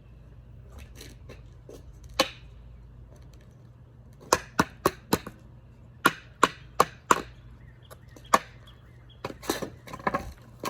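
Loud, sharp knocks and whacks of objects being banged to make noise: a single whack about two seconds in, then two runs of four quick strikes, one more strike, and a denser flurry of hits near the end.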